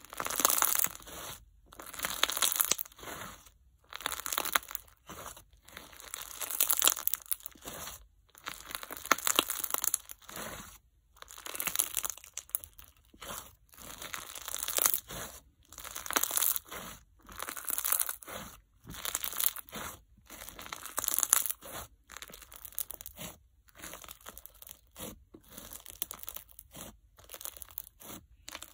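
Crunch slime packed with bingsu beads and microbeads being squeezed and pressed by hand, crackling and popping in repeated bursts about every second or so as the beads are crushed, quieter toward the end.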